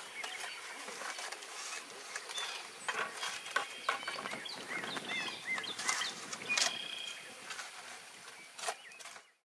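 Small birds chirping in short, arched notes, mixed with scattered clicks and scrapes of hand tools working in dirt. The sound cuts off abruptly near the end.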